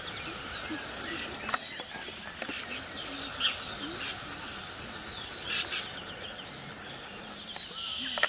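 Songbirds singing: a string of short chirps and quick trills over a faint steady background.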